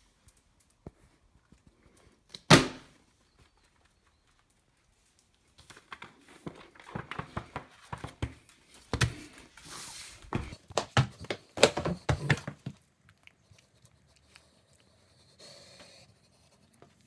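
One loud thump, then several seconds of a small dog panting and scuffling close by, with many small knocks and scrapes.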